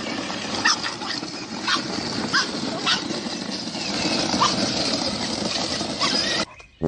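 A dog giving a few short, high yelps scattered over a steady background noise, which cuts off abruptly near the end.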